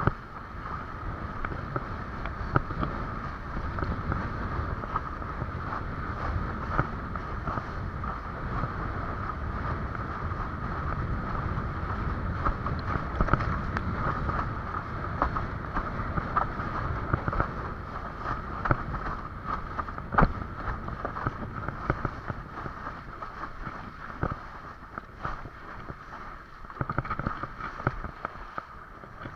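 Wind buffeting the microphone over water rushing and splashing against a windsurf board under way, with frequent small knocks; it eases off somewhat near the end.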